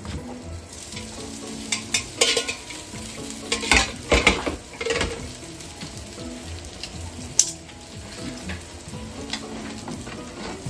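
Food sizzling in a frying pan while it is served out. Utensils clatter and scrape against the pan and dishes from about two to five seconds in, and there is one sharp click near the end.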